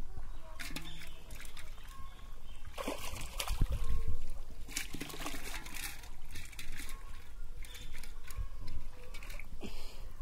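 Pond water sloshing and splashing in irregular bursts as a man wades chest-deep and works his arms through it, with the biggest splashes about three to four seconds in.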